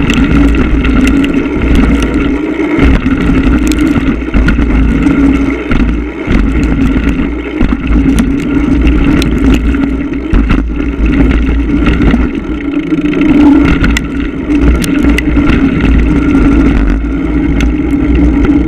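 Mountain bike being ridden on a dirt trail, recorded on a GoPro Hero 1: wind rumbling on the microphone, a steady buzzing drone from the rolling bike, and frequent sharp clicks and rattles.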